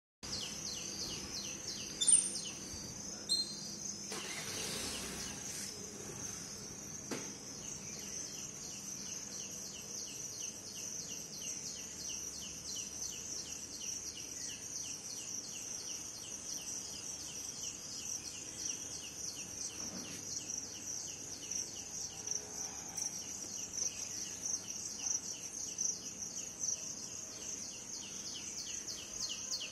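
Steady high-pitched insect chorus with a bird repeating a short falling chirp about three times a second, the chirps growing louder near the end. Two sharp clicks about two and three seconds in.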